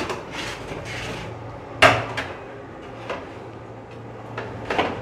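Long metal ladle scraping and clanking against the side of a large aluminium cooking pot as dum-cooked chicken biryani is turned over to check that it is done. Sharp clanks come at the start, about two seconds in and near the end, with softer scraping strokes between.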